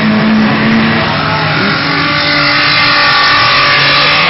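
Several autocross cars racing on a dirt track, their engines running hard together at several different pitches that shift as the cars accelerate past.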